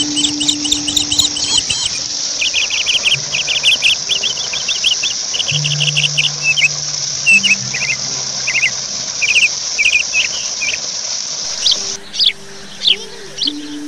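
Insects, crickets by their sound, droning steadily, with birds chirping in quick repeated runs; the drone drops away about a second before the end while the chirps go on. A few low steady tones run underneath.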